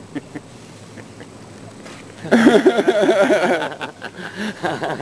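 A person's voice close to the microphone: a loud burst of vocal sound with its pitch wavering up and down, starting a little after two seconds in and lasting about a second and a half, followed by quieter voice sounds.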